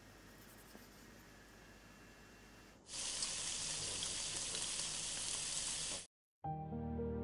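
Faint room tone, then about three seconds in, beef sizzling in a hot pan for about three seconds, cutting off abruptly. Soft, slow music begins just before the end.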